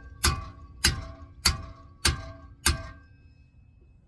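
Hammer striking a hand impact screwdriver five times, about one blow every 0.6 s, each blow ringing metallically, to shock loose the screw that holds the brake rotor to the hub.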